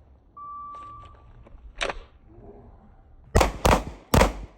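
Electronic shot timer start beep, a single steady tone just under a second long, then 9mm pistol shots: a quieter one about a second and a half after the beep and three loud shots in quick succession near the end.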